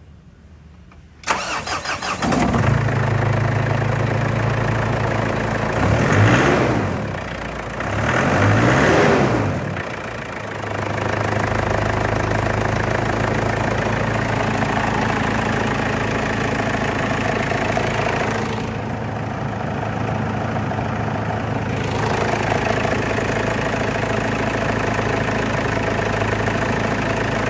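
2009 Ford Ranger's Duratorq TDCi four-cylinder turbodiesel cranking briefly and starting about a second in. It is revved twice, each rev rising and falling, then settles to a steady idle.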